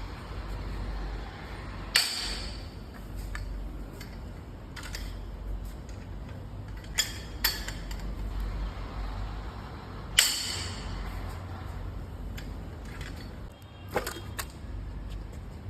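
Hand tools clinking and knocking on metal while the cylinder head bolts of a Mercedes M278 V8 are worked loose during teardown. About five sharp knocks are spread out over a low steady hum, and two of them ring briefly.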